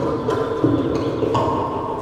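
Sparse percussive music: pitched notes struck about every two-thirds of a second, each ringing on, over a low steady rumble.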